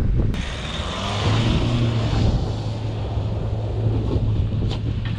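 Four-wheel-drive vehicle's engine droning steadily under load as it drives up a soft sand track.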